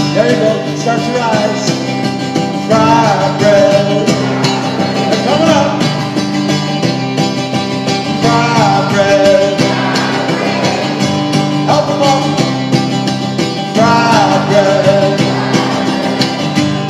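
Acoustic guitar strummed in a steady rhythm, with a man singing long, rising and falling phrases over it.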